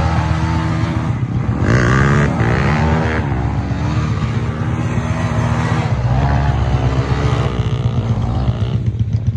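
Several dirt-bike engines running together, one revved up and down repeatedly as its rear wheel spins in gravel, with a couple of clear rising-and-falling revs.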